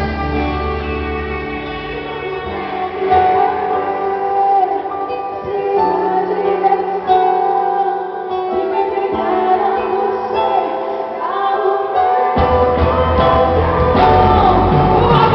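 Live gospel band music with singing over guitar. The low bass drops out about two and a half seconds in and comes back in near twelve seconds.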